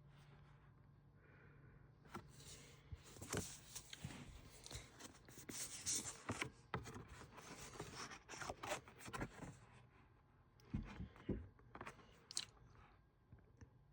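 Faint handling noise: a plastic Blu-ray case and its contents being moved, with a run of small clicks, scrapes and rustles. Two soft low knocks follow about three-quarters of the way through.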